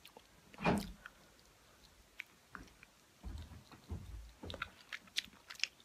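Close-up eating sounds from a person biting into and chewing a sauced chicken wing: soft, uneven chewing with small wet mouth clicks and smacks. One louder, brief sound comes about a second in.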